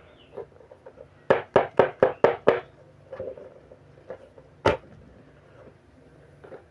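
Six quick, sharp knocks in a row a little over a second in, then one more knock near the middle. Something hard is being tapped to crack the slime open like an egg.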